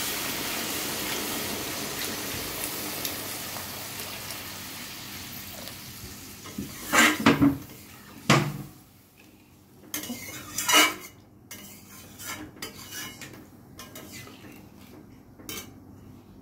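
Water poured onto hot fried masala in a metal kadai hissing and sizzling, the sizzle dying away over the first few seconds. Then a metal spatula stirring and scraping against the pan in a few loud strokes, with lighter clinks after.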